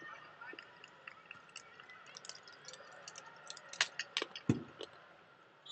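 Indoor volleyball match play: short, sharp ball contacts and clicks over faint arena background noise, with a cluster of louder hits near four seconds, the heaviest about four and a half seconds in.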